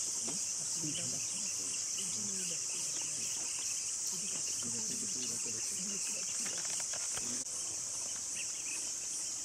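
Steady high-pitched chorus of forest insects, with faint low voices murmuring underneath.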